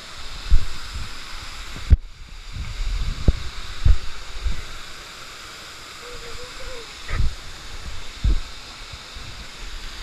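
Steady rush of a waterfall close by, with irregular low thumps of spray and wind buffeting the microphone.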